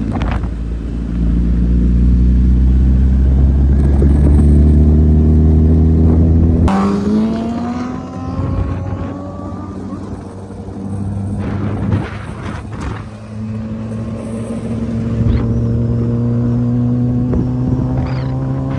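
Motorcycle engine running under way at road speed, its pitch climbing slowly as it accelerates. About seven seconds in the note changes suddenly, then climbs again.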